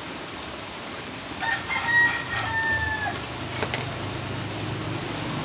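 A rooster crowing once: a single call of about a second and a half, held on one note and dropping at the end.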